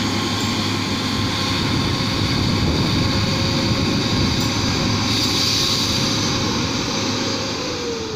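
Heavy dump truck running across the mine floor, a steady engine drone with a whine that falls in pitch near the end.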